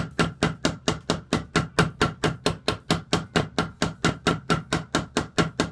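Ball-peen hammer tapping the steel tang end of a draw knife, a steady run of light metal-on-metal taps, about five a second. The tang's end is being peened over the handle cap, mushroomed so the handle cannot pull off.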